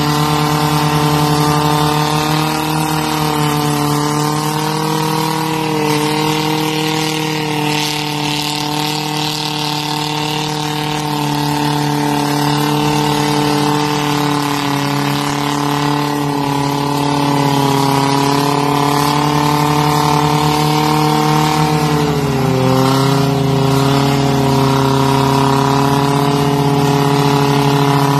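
Engines held at high, steady revs while a pickup truck spins its rear tires in a smoking burnout against a John Deere diesel garden tractor in a tug-of-war. The pitch sags briefly about three-quarters of the way through, then comes back up.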